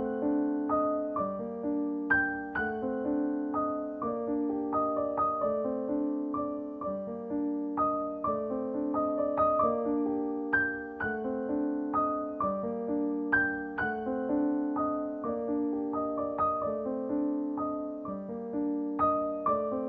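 Background music: a gentle piano piece of single notes over held chords, played at a slow, even pace.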